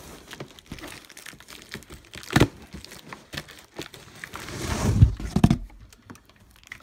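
Large cardboard box holding a poly dump cart being tipped and handled, the cardboard rustling and scraping, with a sharp knock about two and a half seconds in and two heavy thuds about five seconds in.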